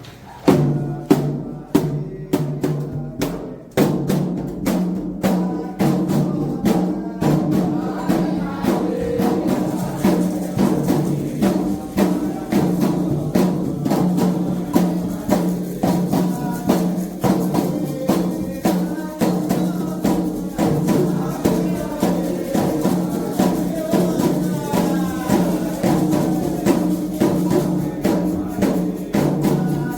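Candomblé toque: atabaque hand drums with a bell or rattle playing a steady, driving rhythm under singing. A few loud strikes come in about half a second in after a sung line, and the full rhythm settles from about four seconds in.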